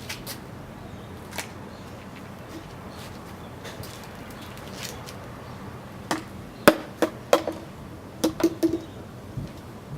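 A run of sharp knocks and clicks: a few scattered ones at first, then a quick cluster of about a dozen in the second half.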